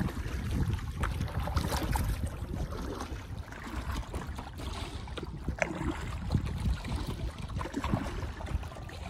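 Kayak paddles dipping and splashing in calm water, with scattered drips and trickles. Wind buffets the microphone throughout with a low steady rumble.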